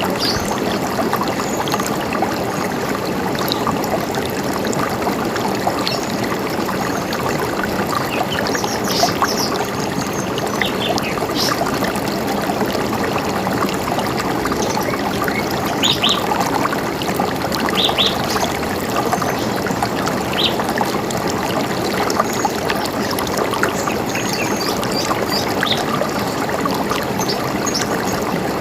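River water running steadily, with birds giving short high chirps now and then over it.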